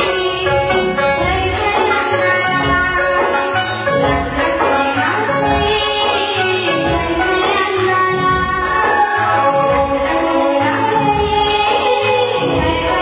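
A girl singing a song to instrumental accompaniment with a steady percussion beat.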